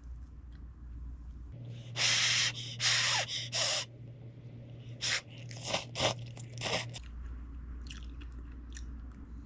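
A person slurping instant noodles from a pot: a run of noisy slurps in quick succession from about two to seven seconds in. Quieter chewing and small clicks come before and after.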